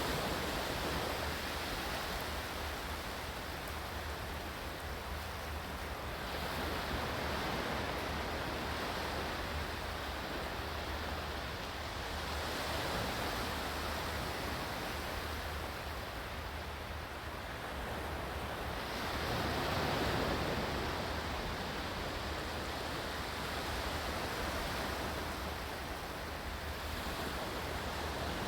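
Ocean waves breaking and washing in, a steady rush that swells and falls back about every six to seven seconds.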